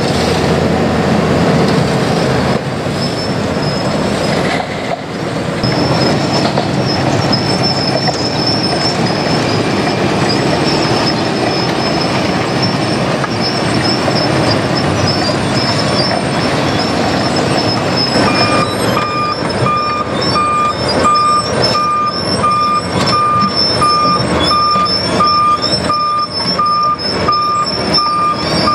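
Wirtgen W250i cold milling machine running and grinding up old asphalt: a loud, steady din of diesel engine and cutting drum, with a high whine and clanks. From about two-thirds of the way in, a backup alarm beeps at a regular pace.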